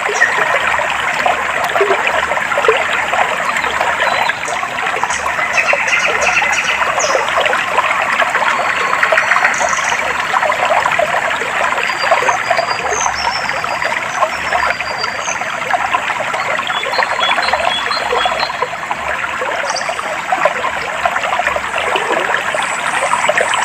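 Clear water flowing and trickling in a steady stream, with faint high bird chirps here and there.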